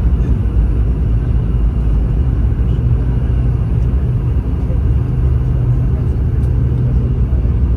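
Cabin noise inside a Boeing 717 airliner during its descent and landing: a steady low rumble of airflow and its two rear-mounted turbofan engines, with a low, even hum.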